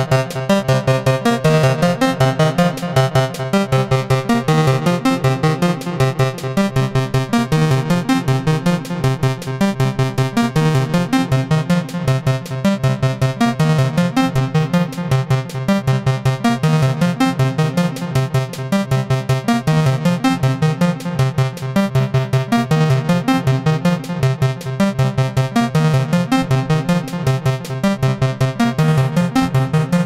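Eurorack modular synthesizer playing a fast, pulsing pattern of low notes with buzzy overtones. The source is a square wave from an Intellijel Dixie oscillator, overdriven through Mutable Instruments Veils and shaped by the Herzlich Gabor passive octave bandpass filter with feedback, which boosts and cuts the square wave's harmonics. A light delay is on the signal.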